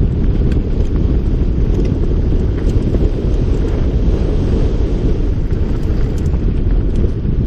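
Wind buffeting the microphone of a camera riding on a mountain bike at speed down a dirt singletrack, a steady heavy rumble, with scattered small clicks and rattles from the bike over the bumpy trail.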